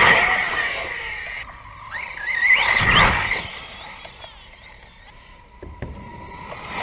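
Arrma Outcast 6S RC truck's brushless motor whining in two bursts of throttle, one at the start and another about two and a half seconds in, its pitch sliding up and down.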